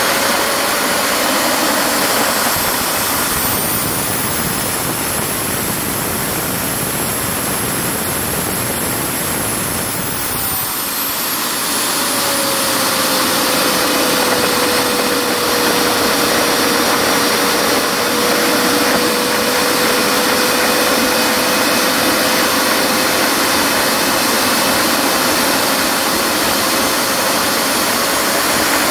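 Homemade TF200-1 RC turbofan prototype running on its test stand with a steady jet rush and whine. A few seconds in the whine climbs as the spool accelerates, holds, then falls back about ten seconds in. The engine then settles into a steady idle.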